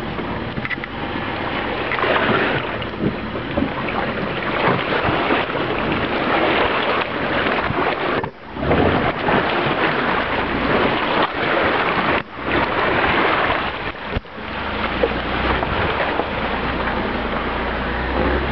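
Creek water splashing and churning around a 2008 Jeep Wrangler's tyres as it drives through a shallow, rocky creek, with wind on the microphone. The engine's low rumble comes up near the end as the Jeep climbs out onto the trail.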